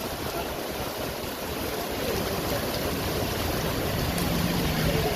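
Steady rushing noise of an Indian Railways passenger train running along the track, with a low steady hum coming in about four seconds in.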